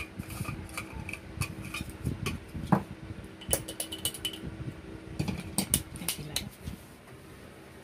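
Clicks, taps and knocks of a small glass coffee-grinder jar being handled, its screw lid twisted off and the jar moved about, with a brief squeak a few seconds in.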